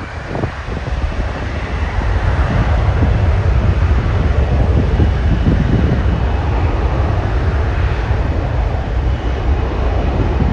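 Airliner engines roaring at takeoff power, swelling over the first couple of seconds and then holding steady and loud, with wind buffeting the microphone.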